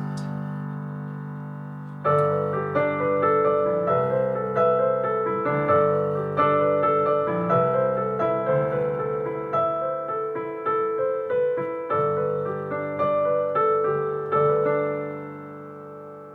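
Solo piano closing out a song: a held chord fades, then a gentle run of single notes and chords about two seconds in, ending on a final chord that dies away near the end.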